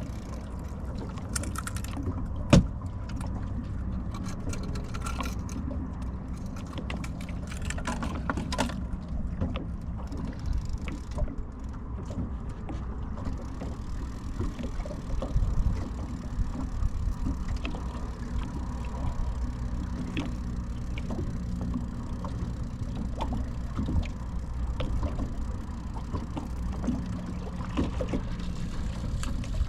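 A boat's motor running steadily as a low rumble, with a single sharp knock about two and a half seconds in and scattered small clicks and knocks.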